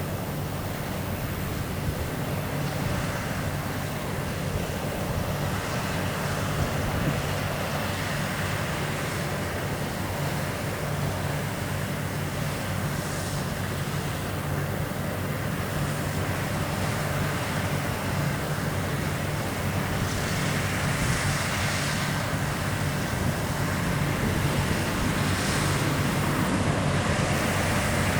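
New Holland CR8.90 combine harvester running steadily while harvesting wheat: a constant low engine drone under a steady rushing noise, growing slightly louder toward the end.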